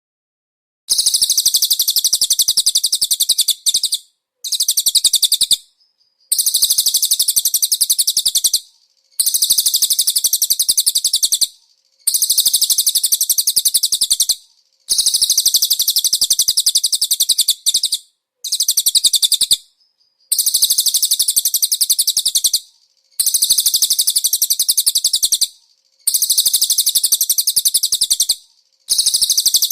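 Rapid, high-pitched songbird twittering from a konin masteran recording, its song mixed with cililin phrases. It comes in runs of about two to three seconds separated by short pauses, starting about a second in.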